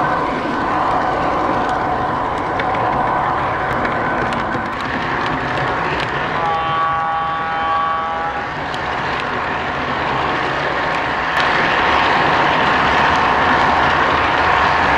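O-gauge model train running on the track: a steady rolling rumble of wheels and motor with a thin whine. About six and a half seconds in, a model diesel horn sounds for about two seconds, and the running noise gets a little louder near the end.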